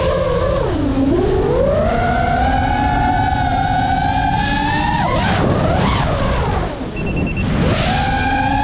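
GEPRC Mark5 FPV quadcopter's brushless motors whining, the pitch dipping and climbing with the throttle, with quick up-and-down sweeps about five seconds in and a brief drop in level near seven seconds. A rushing noise of wind runs underneath.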